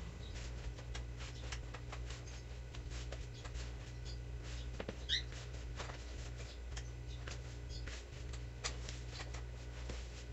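Hands kneading a crumbly cornstarch-and-cream dough in a bowl: soft, irregular rustling and crackling of the dough pressed and turned, over a steady low hum. A brief high chirp sounds about halfway through.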